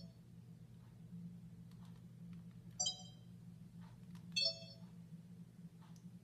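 Handheld camcorder giving two short electronic beeps, about three seconds in and again a second and a half later, as its buttons are pressed, with faint button clicks and a steady low hum underneath.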